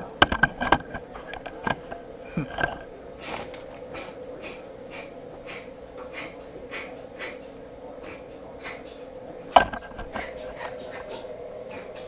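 A cat with a cold sneezing in a rapid series of short, hissy sneezes, about two a second, a sound that can be mistaken for retching. A sharp knock comes near the end.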